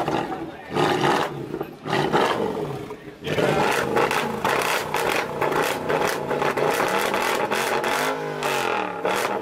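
Mercedes-Benz C63 AMG's V8 being revved hard while standing still, loud through its quad exhaust. It is blipped a few times in the first three seconds, then held high, with the pitch dropping and climbing again near the end.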